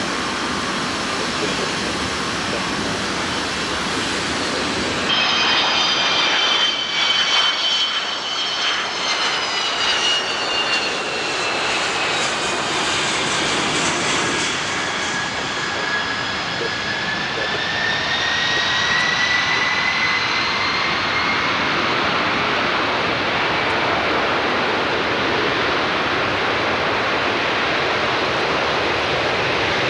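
Boeing 747-200's General Electric CF6-50E2 turbofan engines running as the jet taxis, a steady rush of jet noise. About five seconds in, a high engine whine comes in and slides down in pitch, then rises again midway through.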